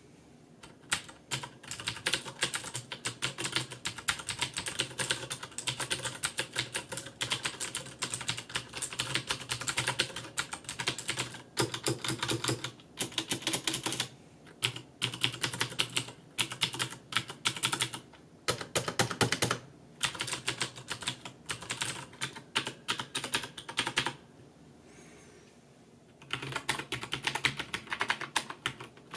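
Rapid typing on a compact mechanical keyboard, a dense run of key clicks with short pauses and one longer break about 24 seconds in before the typing picks up again.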